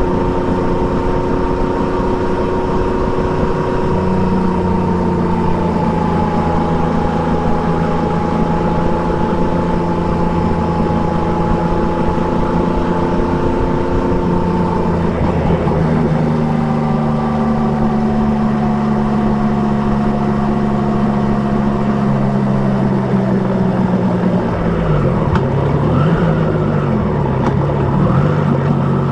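Triumph Trident 660 motorcycle's inline three-cylinder engine running under way through an Akrapovic exhaust, its pitch drifting slowly down. The engine note changes about halfway through, and near the end the engine speed rises and falls several times.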